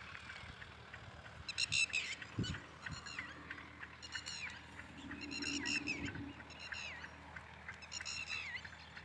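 Animal calls over open farmland: short, high calls in clusters of several notes, each note dropping in pitch, repeating every second or so. A lower drawn-out call comes about five seconds in.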